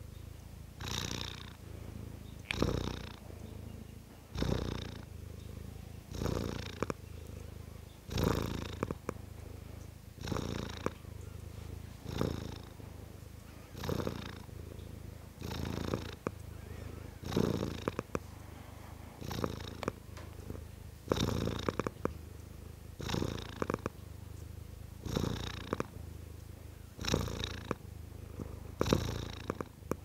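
Domestic cat purring steadily and continuously, swelling in regular pulses about every two seconds.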